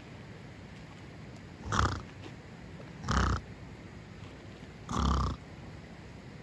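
Domestic pig grunting: three short grunts about a second and a half apart.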